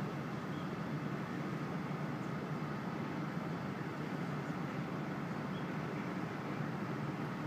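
Steady outdoor background noise, an even hum with no distinct events.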